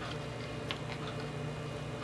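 A few faint, light ticks of chopped walnut pieces being sprinkled by hand onto batter in paper-lined tins, over a steady low hum.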